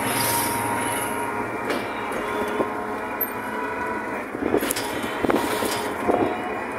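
Train running over a steel truss bridge, heard from inside the carriage: a steady rumble and rattle of wheels on the rails, with several sharp clanks in the second half.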